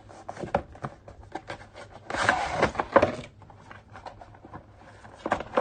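A GoPro 3-Way grip arm tripod being handled out of its packaging: small plastic clicks and knocks, with one louder scraping rub lasting just over a second about two seconds in.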